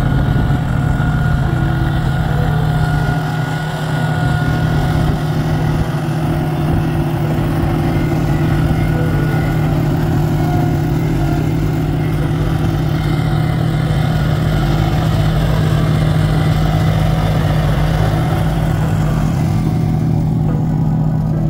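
Engine of a Wacker Neuson ride-on tandem drum roller running steadily with a strong low hum as the steel drums roll over and compact loose crushed recycled asphalt.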